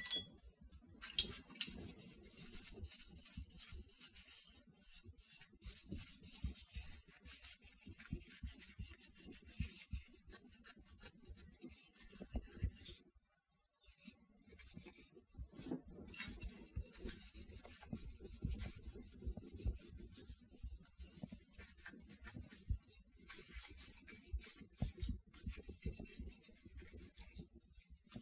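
A cloth rubbing and wiping over a steel pistol magazine in irregular strokes, with small handling knocks. A single sharp clack sounds right at the start.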